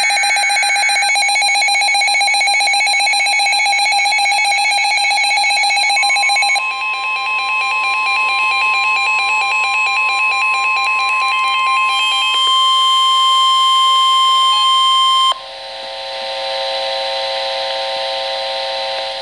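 Emergency Alert System warning tones: a rapidly pulsing electronic alarm tone, then a single steady high tone held for about nine seconds (the weather-radio alert tone), overlapped at first by other beeping. About fifteen seconds in it gives way to a buzzier, hissy tone.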